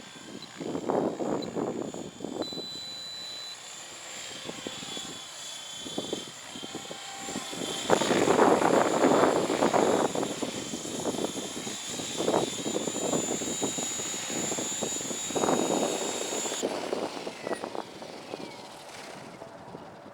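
Align T-REX 700E 3G electric RC helicopter with its 700MX brushless motor, a steady high motor whine over rotor noise. The whine cuts off about three-quarters of the way through, and a falling tone follows as the rotor spins down. Gusts of wind rumble on the microphone throughout.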